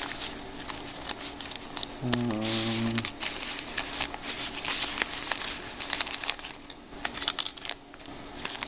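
Wrappers of sealed trading-card packs crinkling and rustling as they are handled, in a quick, irregular run of crackles. A short hummed voice sound about two seconds in.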